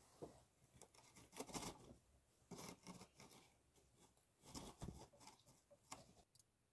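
Faint rustling of a cotton sweatshirt being gripped and pulled up by hand, in a few short, irregular rustles.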